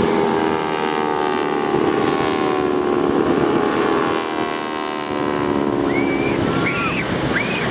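T-6 Texan-type warbird flying past, the drone of its radial engine and propeller sliding slowly down in pitch as it goes by. A few short high calls come in near the end.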